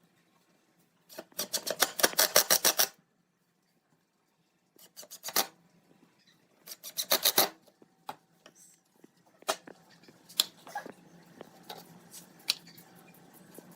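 A hand tool rasping or scraping wood in short bursts of rapid strokes, then lighter scattered scrapes and ticks over a faint low hum near the end.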